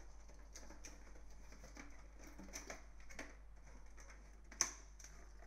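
Cardboard packaging of a CPU cooler handled by hand: faint rustling and scraping as the flaps are opened and a cardboard insert is lifted out, with one sharp tap about four and a half seconds in.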